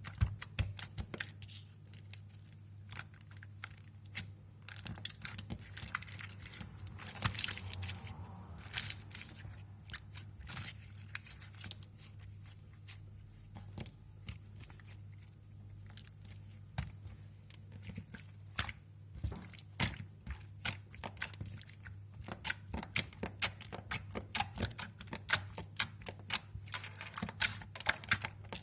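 Slime being squeezed and pressed by hand, making irregular rapid sticky clicks and pops over a steady low hum.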